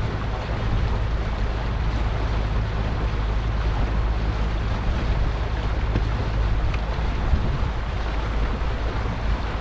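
A motor cruiser under way: a steady low engine hum and rushing water, with wind rumbling on the microphone.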